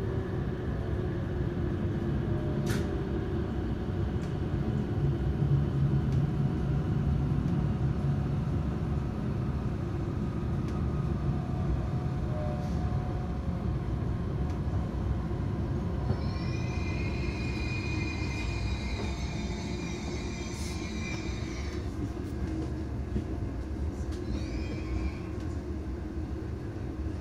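Hokuriku Shinkansen train running into a station, heard from inside the car: a steady low rumble, with a low whine falling in pitch at the start as the train brakes. About sixteen seconds in, a high ringing tone sounds steadily for several seconds, and a brief higher gliding sound follows a few seconds later.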